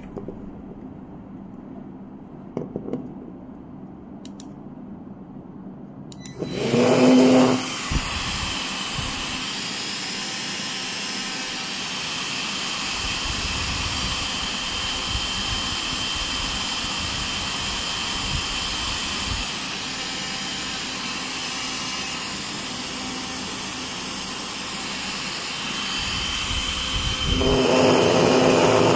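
Hot air gun's blower motor switching on about six seconds in with a loud hum, then running steadily with a rushing of air and a high whine. It grows louder again, with a stronger hum, near the end.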